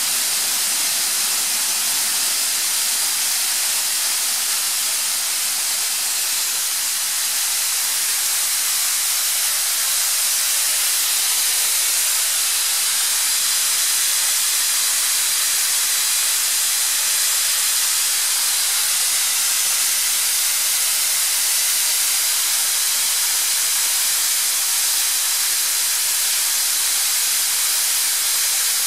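Atlas Copco ZR 400 oil-free screw air compressor running on a test run: a loud, steady rushing hiss of air and machinery that does not change.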